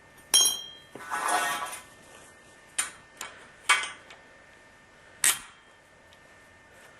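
Copper pipe and a tubing cutter being handled: a sharp ringing metallic clink near the start, a short scraping rasp about a second in, then four separate sharp knocks and clicks.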